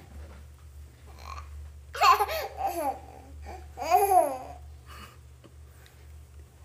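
A toddler laughing and babbling, loudest in two high calls that rise and fall in pitch, about two and four seconds in, over a steady low hum.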